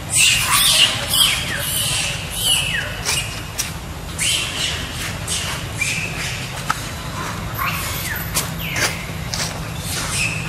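Macaques screaming and squealing in a squabble: a run of short, high calls, many falling in pitch, over a steady low rumble.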